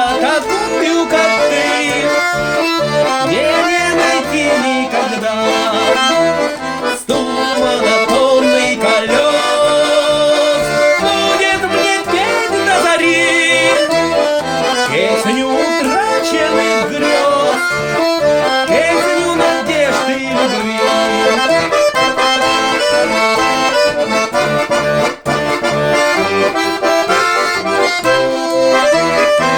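Garmoshka (Russian button accordion) playing an instrumental melody over a steady chordal accompaniment, with brief breaks about seven seconds in and near the end.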